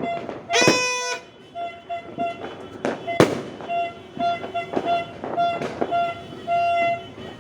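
Fireworks and firecrackers going off: a run of sharp bangs, the loudest about three seconds in. Under them, a horn toots on and off, each toot on one steady note.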